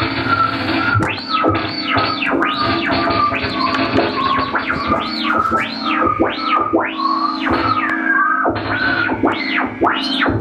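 Custom analog synthesizer played by hand movements over capacitive sensors: a steady low drone under a wavering high tone, with quick sweeps rising and falling in pitch, about two a second, starting about a second in.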